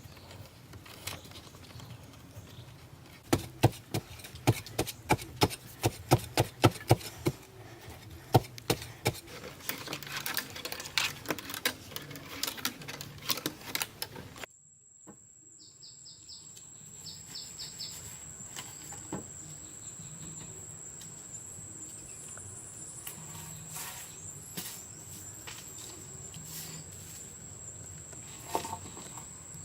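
A run of sharp knocks, irregular and a few a second, that thins out by about halfway. Then, after a sudden cut, a steady high insect drone with a few scattered clicks.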